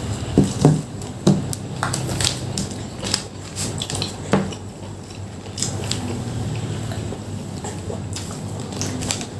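Close-miked eating of rice and side dishes: chewing, with scattered sharp clicks of food and utensils against the plate.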